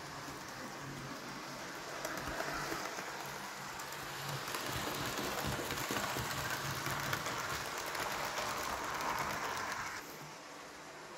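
OO gauge model train, a Manor-class locomotive hauling coaches, running along the track with a steady rolling rattle of wheels on rail. It grows louder as the coaches pass close by and falls away about ten seconds in.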